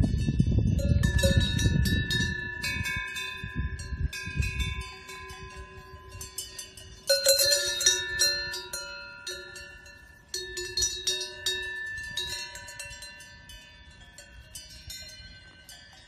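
Cowbells on grazing cows clanking and ringing at several pitches, with louder clusters of strikes about seven and ten seconds in. A low rumbling noise sits under the bells for the first five seconds.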